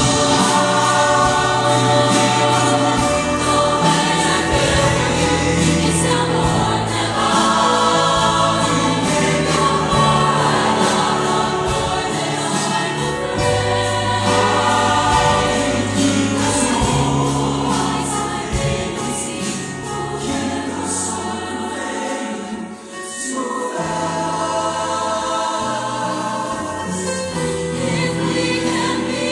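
A mixed show choir singing full-voiced over accompaniment with a bass line and a steady beat, which dips briefly about three quarters of the way through.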